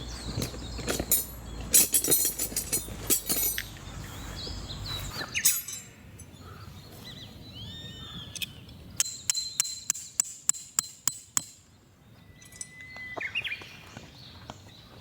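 Outdoor camp sounds: rustling and sharp knocks from gear being handled, with a low rumble that stops suddenly about five seconds in. Later come a run of about ten sharp clicks or taps, roughly four a second, and small birds chirping in between.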